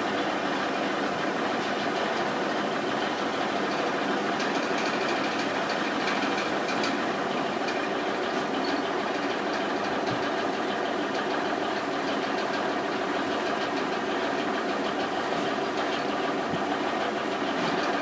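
Steady mechanical drone of a running machine, unchanging throughout, with a few faint high ticks now and then.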